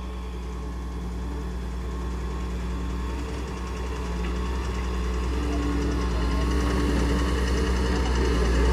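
Diesel engine of a Doosan wheeled excavator running steadily while it digs soil and swings a full bucket. It grows gradually louder.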